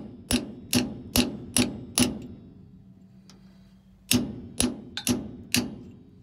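Hammer blows on a chisel driven into an old differential pinion seal, each a sharp metallic ringing hit at about two a second: five in a row, a pause of about two seconds, then four or five more. The blows are meant to deform the stuck seal so it can be pried out.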